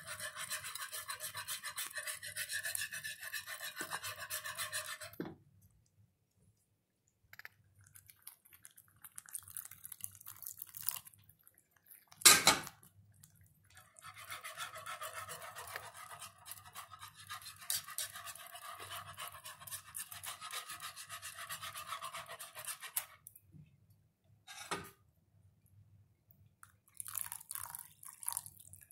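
Wire whisk beating a thick gravy in a skillet: quick, even scraping strokes in three spells, with a sharp knock about twelve seconds in. Near the end, water pours into the gravy.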